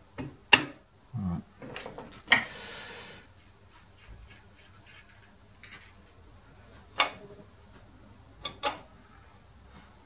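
Metal parts of a worm shaft assembly handled by hand: a few sharp clinks and knocks, the loudest about half a second and two seconds in, the second followed by a short scrape, with a low thud in between and two quick clinks near the end.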